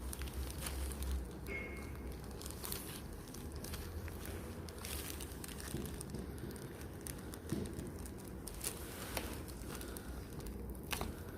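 Opening tools prying the glued back cover off a Samsung Galaxy M32 phone: scattered small clicks and crackles as the adhesive gives way.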